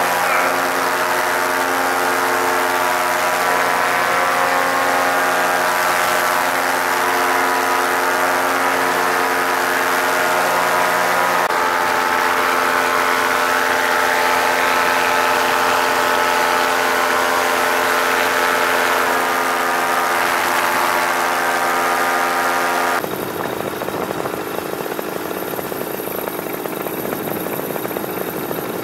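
Backpack paramotor engine and propeller running steadily in flight, a dense whine of engine tones. About 23 seconds in the sound drops a little and turns rougher and more rushing.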